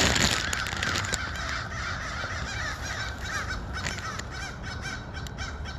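A flock of crows cawing over and over in the distance, many overlapping calls. A brief rustle of handling comes at the start.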